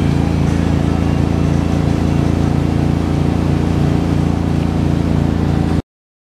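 Wake boat's inboard engine running steadily under load, with a hiss of churning water and wind over it. The sound cuts out abruptly near the end.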